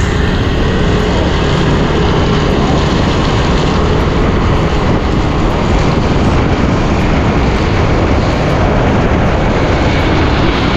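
Steady loud rush of wind and wet-road noise from a motorcycle riding through rain, with its engine running underneath.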